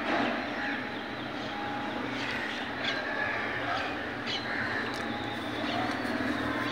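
Outdoor dawn ambience: birds chirping briefly several times over a steady low background hum.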